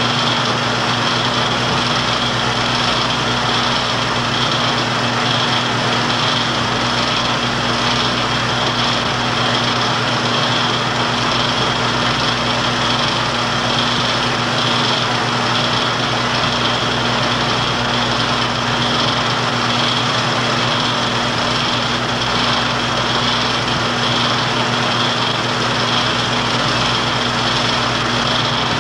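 Film projector running: a steady mechanical whirr over a constant low hum.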